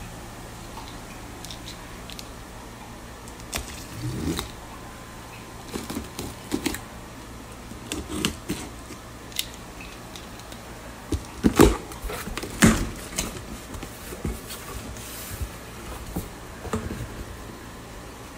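Cardboard shipping box being opened by hand: scattered rustles, scrapes and knocks of the flaps, loudest as two knocks about two-thirds of the way through, over a steady low hum.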